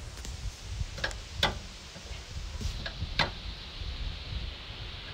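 Hand wrench clicking and knocking against the steel of a truck's front suspension as bolts are worked loose: four sharp metallic clicks, over a low steady background rumble.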